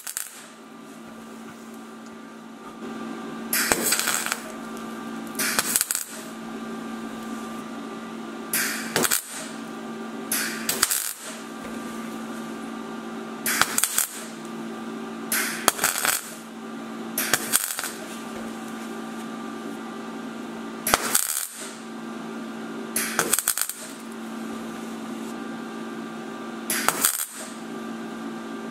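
MIG welder laying short tack spots on thin steel body sheet, building up a ring of weld around a rust-through hole to close it. About a dozen brief crackling bursts come a second or two apart, over a steady hum.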